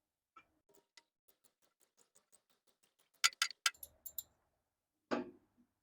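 Ratchet wrench turning a spark plug socket to loosen a motorcycle spark plug: a run of light, even clicks, about five a second, growing louder about three seconds in. A brief louder sound follows near the end.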